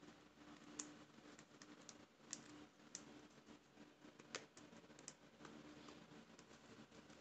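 Faint, irregular clicks and light scraping of a metal spoon tip against the plastic neck ring and plastic film of an oyster mushroom grow bag, as the bag's opening is cleaned out after harvest; the sharpest click comes about four seconds in.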